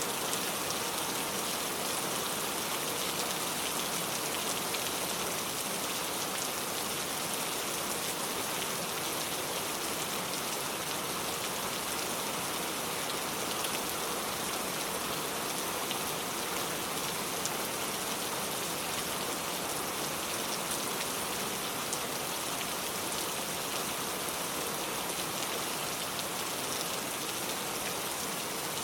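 Steady rain falling and pattering on surfaces, an even hiss with faint scattered drop ticks.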